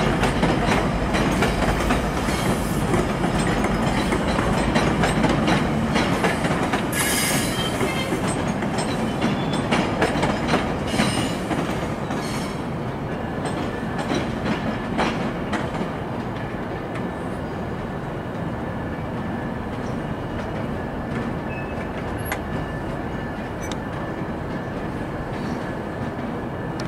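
GO Transit bilevel passenger train rolling slowly through the station tracks: a steady wheel-and-rail rumble with clacks over rail joints and switches and brief high wheel squeals. The sound slowly fades, leaving a faint thin squeal in the second half.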